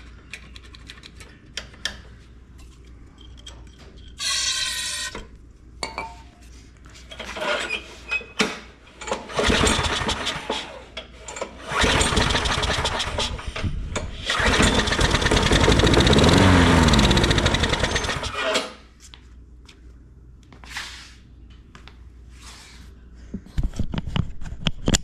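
Craftsman 6.5 HP push mower's small engine being recoil pull-started: it fires and runs for about six seconds on starting spray, its fuel tank being dry, then cuts out suddenly.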